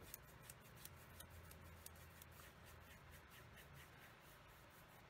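Faint, scratchy strokes of a paintbrush spreading acrylic paint across a canvas, several strokes a second.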